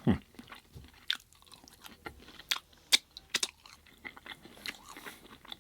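Close-miked chewing of food, with irregular sharp crunches and mouth clicks, the loudest crunch about three seconds in.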